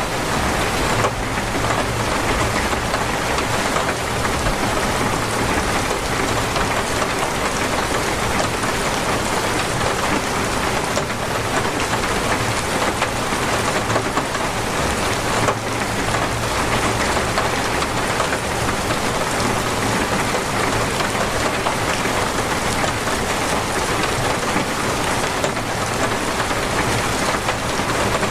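Torrential rain pouring steadily: a dense, even hiss of water falling and hitting surfaces.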